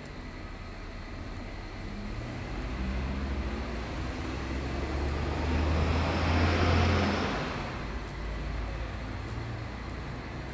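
A road vehicle drives past close by. Its low engine rumble and tyre noise build up, are loudest about six to seven seconds in, then fade away over a steady traffic background.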